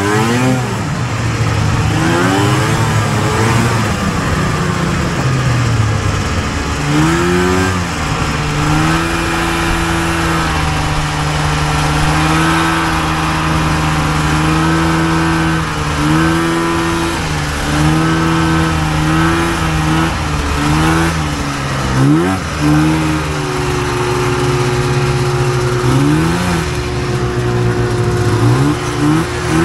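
Two-stroke engine of a 1983 Polaris Cross Country Indy snowmobile under way, revving up and easing off several times between longer stretches of steady cruising.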